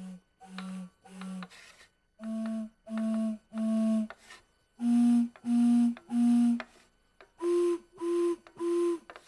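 Home-made slide whistle, a wooden tube closed by a movable piston, blown in short breathy toots: three at each pitch, the pitch stepping up four times as the piston shortens the air column.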